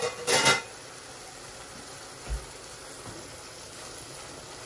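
Stainless steel cookware clanking twice at the start, then a faint steady hiss from the pot simmering on the gas hob, with one soft thump about two seconds in.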